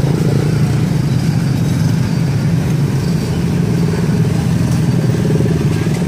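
An engine running steadily close by, a low continuous hum with a fine regular pulse and no change in speed.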